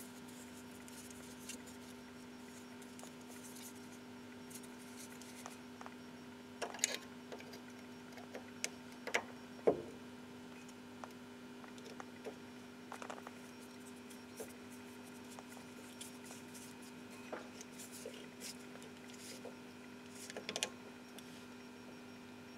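Scattered faint metallic clicks and taps of a hand tool tightening the new brake disc's retaining screw into the hub, the loudest about ten seconds in, over a steady low hum.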